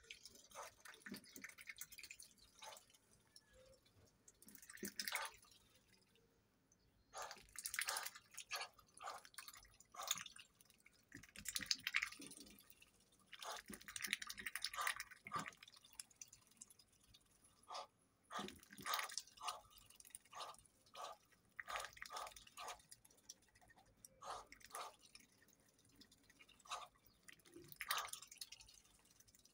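Muscovy duck dabbling for chopped collard greens in a tub of water: wet slurps, splashes and bill clicks in irregular clusters with short pauses between them.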